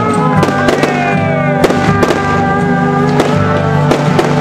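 Aerial fireworks bursting with repeated sharp bangs and crackles, over loud music with sustained tones.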